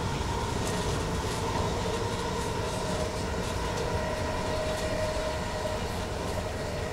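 DB Class 422 electric multiple unit running, heard from inside the carriage: a steady rumble of wheels on rails with a steady whine from its Bombardier MITRAC IGBT traction inverter and motors.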